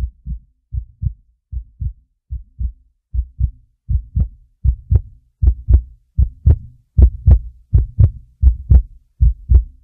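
Heartbeat sound effect: evenly spaced pairs of low thumps, a little over one pair a second, growing louder and sharper from about four seconds in.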